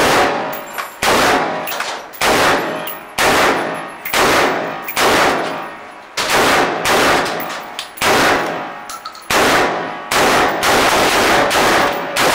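Gunshots in an indoor range hall, fired singly at about one a second, a dozen in all, each ringing out in the hall's echo.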